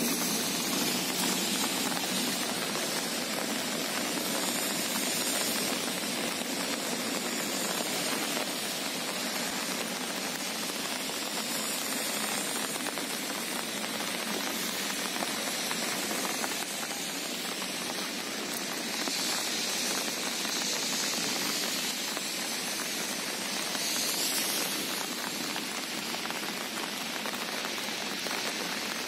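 Steady rain falling, an even hiss without breaks.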